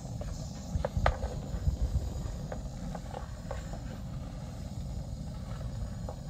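Small gas camping stove burning with a steady low rush, with a few sharp clicks and knocks of its metal frame in the first two seconds as it is moved about.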